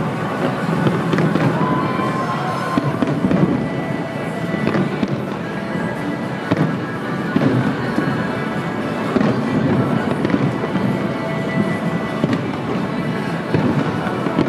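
Aerial firework shells bursting in irregular bangs and crackles, with music playing underneath.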